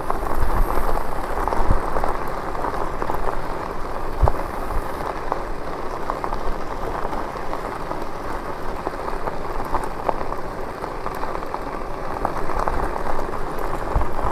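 Steady rolling noise of an e-bike riding along a road, with wind buffeting the camera's microphone and many small scattered ticks.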